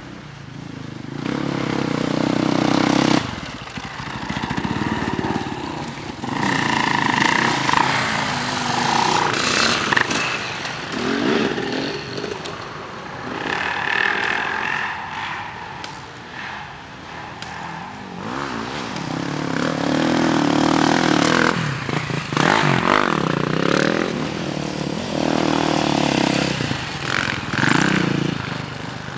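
Enduro motorcycle engines revving hard in repeated surges of throttle, rising and falling, one surge cutting off sharply about three seconds in.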